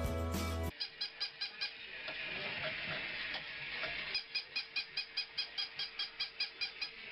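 Music cuts off abruptly just under a second in. Then a small motorized toy mouse runs across a wooden floor, making a rhythmic clicking of about five clicks a second over a faint steady whine, in two runs.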